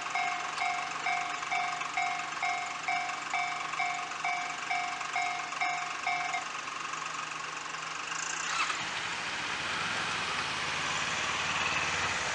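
Japanese railway level-crossing warning bell ringing, an electronic two-tone ding about three times a second, which stops about six seconds in after the train has passed. Near the end a road vehicle's engine and tyres are heard moving.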